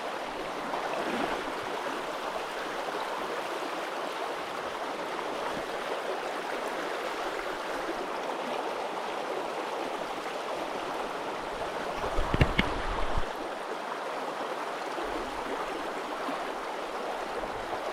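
Steady rush of a river's flowing water, with a few low bumps about twelve seconds in.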